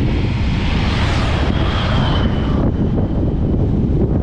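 Wind buffeting a helmet-mounted microphone on a moving motorcycle. An oncoming truck rushes past, its noise swelling about a second in and cutting off near the middle.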